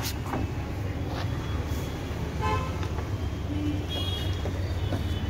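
Steady low rumble of road traffic with a few short horn toots, the clearest about two and a half and four seconds in. A few light knocks as the HP Smart Tank 500's scanner lid is handled and shut.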